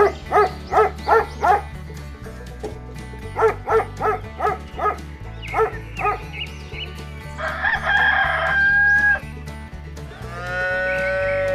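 Farm-animal calls over background music: two runs of short, quick chicken clucks, then a rooster crowing about seven seconds in, and a cow mooing near the end.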